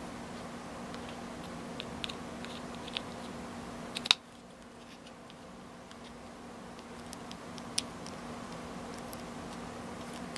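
Small plastic toy figurines and base parts clicking and tapping as they are handled and pressed together, with a sharp snap about four seconds in and another near eight seconds, over a steady low hum.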